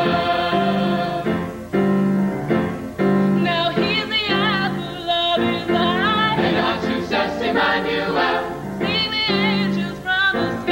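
A mixed high-school pop choir sings a Christmas song in several voice parts. A high female voice with vibrato rises above the group in the middle and again near the end.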